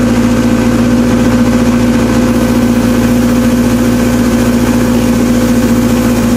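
Small excavator's engine running at a steady speed, one constant loud note with no change in pitch.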